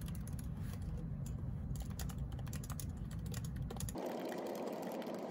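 Typing on a computer keyboard: a quick, irregular run of key clicks over a low hum. About four seconds in the sound cuts abruptly to a steady, different background noise.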